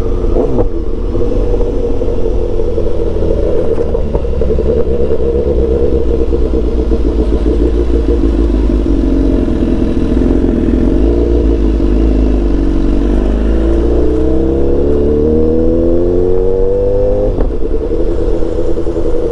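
BMW S1000XR's inline-four engine running at low speed, then revving up steadily as the bike accelerates, with the pitch dropping at an upshift near the end before it runs on steadily.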